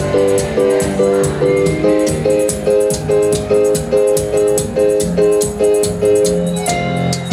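Live band playing an instrumental passage: repeated keyboard chords about twice a second over a moving bass line, with crisp hand percussion ticking on the beat.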